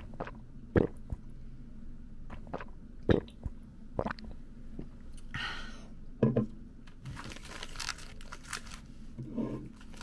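A few sharp clicks and knocks as a drink can is lifted and set down on a table, then a plastic snack bag of kaki-no-tane rice crackers and peanuts crinkling as it is picked up and handled near the end.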